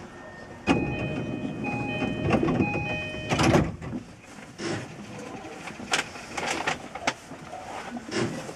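JR East E233 series train's door-closing chime, a repeated electronic tone sequence starting about a second in, over the rush of the sliding doors closing. About three and a half seconds in, a loud thud as the doors shut, then scattered clicks and knocks.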